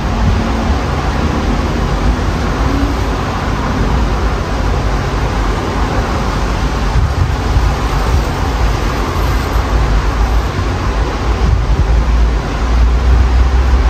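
Strong storm wind gusting and buffeting the microphone, with a low rumble that grows stronger near the end, over the steady noise of highway traffic.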